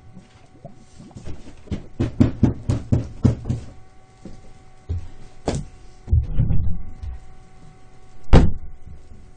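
Knocks and thumps in a small room: a quick run of about a dozen knocks, a few scattered ones, a short rough clatter, then one heavy thump near the end, the loudest.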